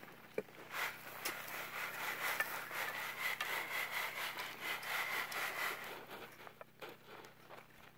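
Dirt and gravel being shaken back and forth across a hand sifting screen, a rough rasping noise with small gritty clicks. It builds about a second in and dies down near the end.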